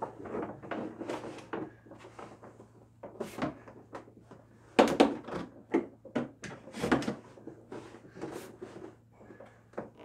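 Hollow plastic knocking and creaking as a person's weight rocks and presses a portable sink's plastic basin down onto its support columns, trying to snap it into place. Irregular knocks, the loudest about five seconds in and again near seven seconds, over a faint steady low hum.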